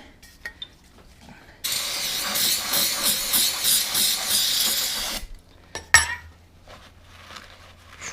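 A spray hissing in one steady blast of about three and a half seconds that starts and stops abruptly, followed about a second later by a single sharp clank.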